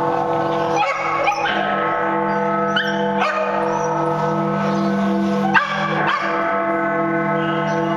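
A dog yipping and whimpering in short bursts over steady background music.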